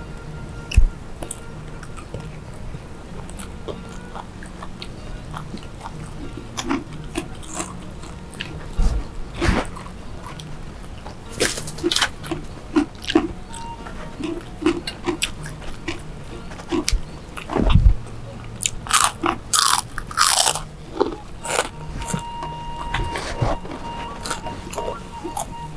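Two people chewing and crunching food close to the microphone, eating by hand from a spread of rice, fried foods and raw vegetables. Sharp crisp crunches come in clusters a little after ten seconds in and again about two-thirds of the way through.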